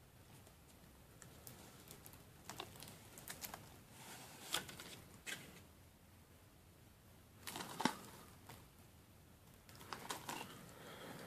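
Faint handling sounds of a Blu-ray package being unboxed: scattered clicks, taps and crinkling of plastic wrap, with a louder clatter about eight seconds in.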